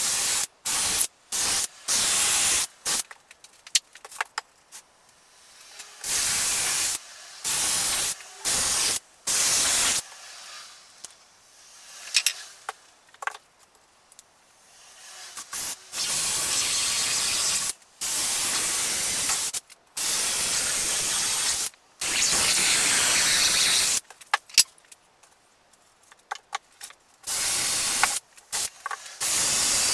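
Cordless drill running into pallet-wood boards in bursts of trigger pulls: a string of short bursts at first, then several steadier runs of about two seconds each, and a few more short bursts near the end.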